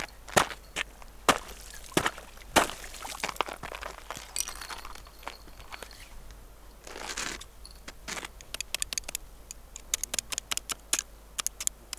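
Ice and crusted snow crunching and cracking in irregular sharp knocks, with a quick run of small clicks over the last few seconds.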